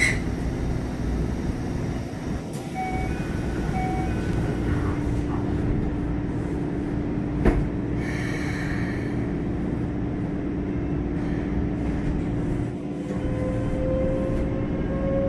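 Inside a Keikyu 600 series commuter car with Mitsubishi GTO-VVVF traction control (1C4M) as the train pulls away. A steady inverter tone sets in a few seconds in, and a second whine begins to rise slowly near the end as the train gathers speed. A single sharp knock comes about halfway through.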